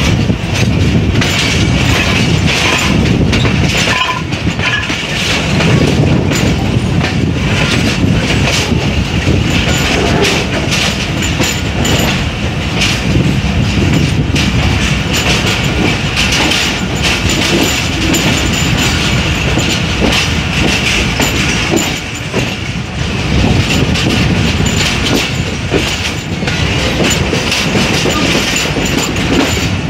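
Jaffar Express passenger train running at speed, heard from on board by an open door or window: a steady rumble and rushing noise with wheels clacking over rail joints.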